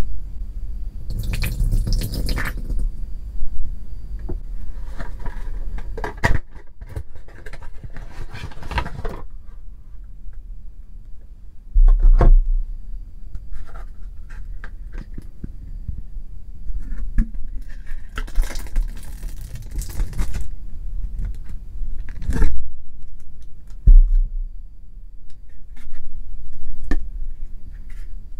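Hands handling a hard plastic clamshell package of soap cubes: stretches of crackling plastic, broken by a few sharp clicks and knocks. Early on there may also be sugar water sloshing in a glass bowl.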